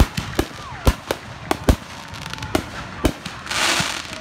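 Consumer fireworks going off: a quick, irregular run of sharp bangs as aerial shells burst, about ten in four seconds. Near the end comes a loud hissing rush as another shot climbs trailing sparks.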